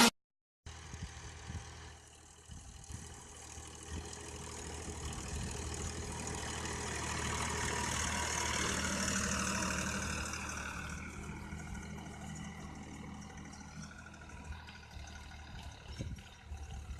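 Farmtrac 60 tractor's diesel engine running under load as it pulls a tiller through the field, growing louder to a peak about halfway through and then fading away.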